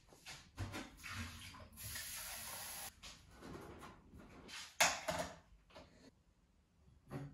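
Quiet household handling sounds: scattered light clicks and knocks, with a steady hiss for about a second, about two seconds in.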